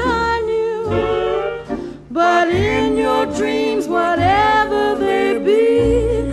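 A pop song playing: several voices singing wordless, bending lines in harmony over a bass line, with a brief drop about two seconds in.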